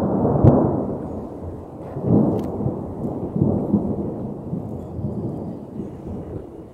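Wind buffeting the microphone of a phone on a moving open chairlift: low rumbling gusts that surge about half a second in and again around two seconds in, then ease off, with a couple of sharp clicks.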